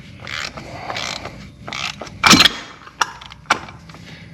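Ratchet turning a cup-style oil filter wrench on a 2004 Yamaha Grizzly 660's spin-on oil filter: a string of short clicking and scraping strokes, with a louder clank a little past the middle.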